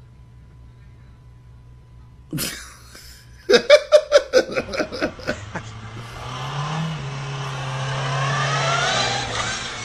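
A man laughing hard in a quick run of bursts about three and a half seconds in, then a Volkswagen Golf hatchback's engine running, rising a little in pitch and growing louder toward the end.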